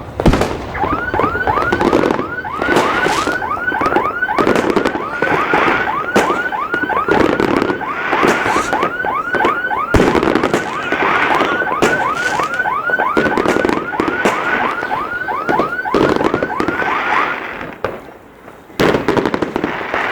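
New Year fireworks crackling and banging, with a car alarm whooping over them in quick rising sweeps, about three or four a second; the alarm stops a few seconds before the end.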